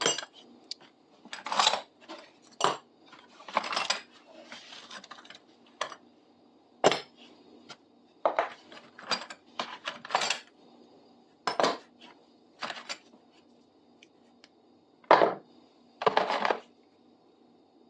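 Loose metal hand tools clinking and clattering as they are rummaged through and picked out of a bucket one by one, in irregular short bursts with pauses between.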